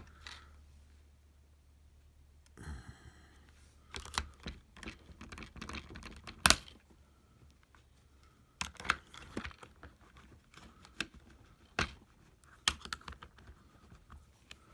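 Small steel screwdriver bits being worked out of and into a tight plastic storage case: scattered sharp clicks and taps with a brief scrape, the loudest click about six and a half seconds in.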